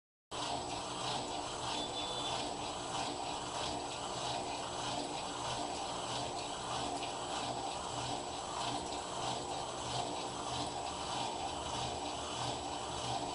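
Electrolux washing machine running mid-cycle: a steady churn of water and mechanical rubbing with an even, repeating pulse. It starts just after a brief silence.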